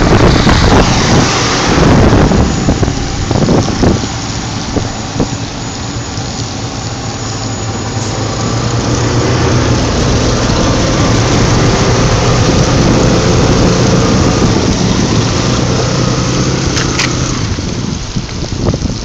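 A vehicle driving through floodwater: a loud rushing, splashing noise, heaviest in the first few seconds, over a steady engine hum that comes through more clearly in the middle.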